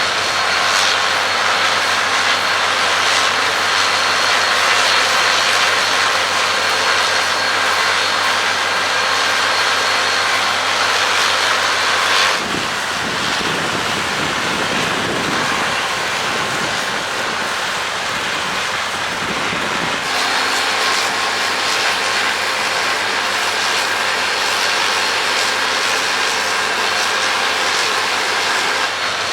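Case IH AF10 combine harvester running steadily while harvesting wheat: a continuous machine drone with steady whining tones. About twelve seconds in the sound cuts abruptly to a deeper-sounding take, then cuts back about eight seconds later.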